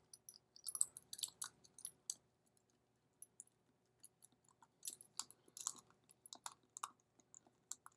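Light clicks and short scrapes of a small screwdriver and loose metal parts being worked while a Bluetooth padlock is taken apart, in two bursts with a quiet stretch between.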